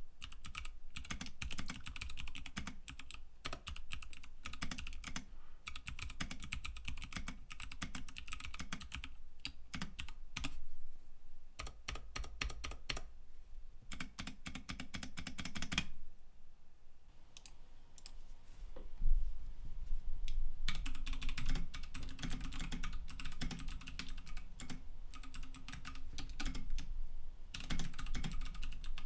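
Typing on a mechanical keyboard with lubed Kailh BOX Pink clicky switches: a fast, continuous run of clicky keystrokes, louder from about two-thirds of the way through. The owner finds the click somewhat softened and smoother for the lubricant.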